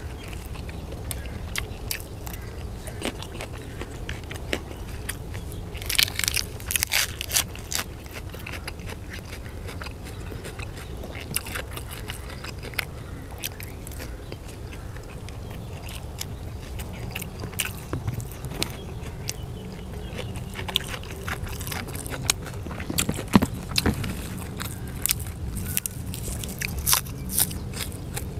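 Close-up biting and chewing of grilled sausages: wet, crisp mouth clicks that come in clusters, thickest about six seconds in and again through the last third, over a steady low rumble.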